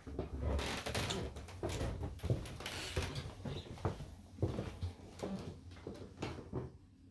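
Footsteps on a hardwood floor with rustling and bumping of a hand-held phone, a string of irregular soft knocks that thins out near the end.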